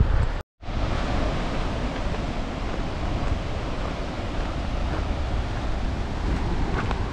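St. Mary Falls' water rushing steadily, mixed with wind buffeting the microphone. The sound cuts out completely for a moment about half a second in.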